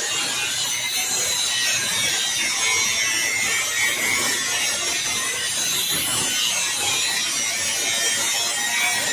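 Angle grinder with a thin cutting disc cutting through 304 stainless steel checker plate, a steady, high-pitched grinding noise as the disc bites the metal.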